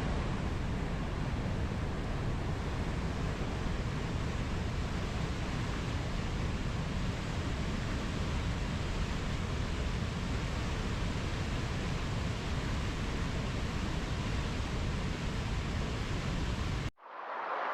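Steady rush of ocean surf, a constant noise heavy in the lows. It cuts off abruptly near the end and a different, thinner hiss takes over.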